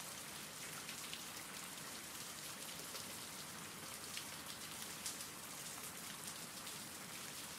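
Faint steady rain: an even hiss of falling rain with scattered drop ticks.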